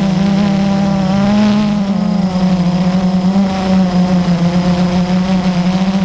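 Drone's electric motors and propellers humming steadily in flight, heard from its onboard camera; the pitch wavers and dips briefly about two seconds in as the throttle changes, then holds.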